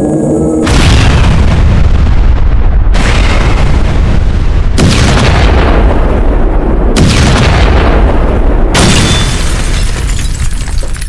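A run of about five loud booming blasts, each lasting about two seconds and following straight on from the last.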